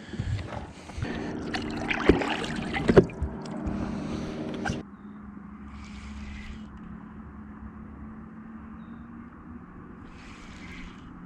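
Water splashing and sloshing with knocks against a fishing boat as a walleye is released over the side, two sharp knocks about two and three seconds in. Then, after an abrupt change, a steady low hum with soft, brief washes of water.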